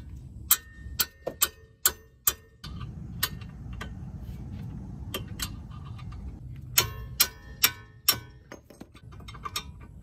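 Socket ratchet clicking in short back-strokes while loosening 17 mm brake caliper bolts: sharp metallic clicks about half a second apart, about five in the first two and a half seconds and about four more around seven to eight seconds in.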